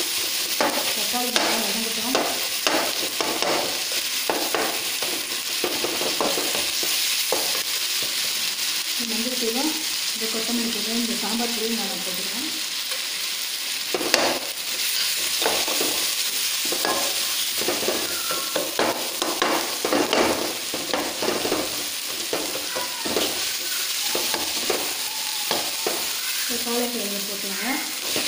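Chopped onions, tomato and spices frying in hot oil in a metal kadai, sizzling steadily, while a perforated metal ladle stirs and scrapes the pan in repeated strokes. One sharper clatter comes about halfway through.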